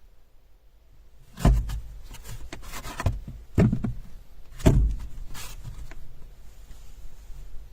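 A few dull thumps and knocks, irregularly spaced, over a low rumble.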